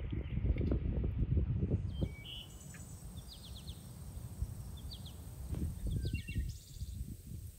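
Small birds chirping in short, rapid high trills, several times over, above a low, uneven rumble of outdoor noise.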